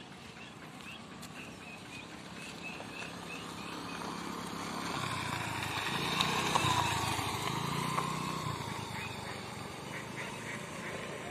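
Small motor scooter riding past at low speed, its engine whine rising as it comes close, peaking about six seconds in, then fading as it moves away.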